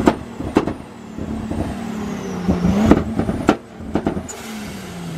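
A car engine running, its note dipping and rising, broken by four sharp bangs in two pairs, the bangs in each pair about half a second apart.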